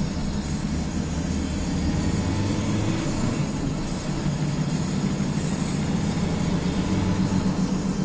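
Car driving at steady road speed: engine and tyre noise heard from inside the cabin, a steady low rumble.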